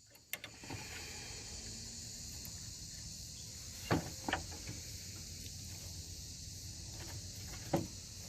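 A few sharp metal clicks and clinks as pliers work a stretched coil spring onto a truck's hood-latch release, over a steady high-pitched hiss.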